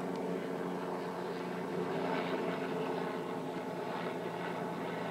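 Boeing 737-800's twin CFM56-7B turbofan engines running steadily on approach to land, a constant hum with several steady tones over a rushing noise.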